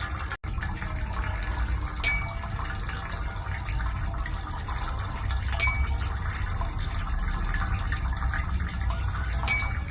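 Water running and sloshing steadily in an ear irrigation during ear wax removal, with a short sharp click and high ping three times, about every three and a half seconds.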